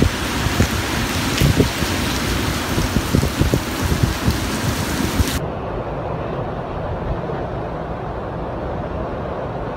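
Heavy typhoon rain pouring down, with wind gusts buffeting the microphone. About five seconds in it cuts to a steady, duller rush of storm wind and surf.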